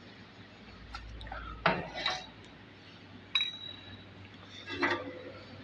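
Metal objects clinking and knocking against each other, four separate clanks, the first the loudest, one followed by a brief high ring.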